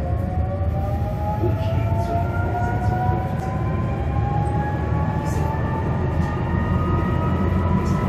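Tatra KT4D articulated tram under way, heard from inside the passenger compartment: a steady low running rumble with a whine from the drive that rises slowly in pitch.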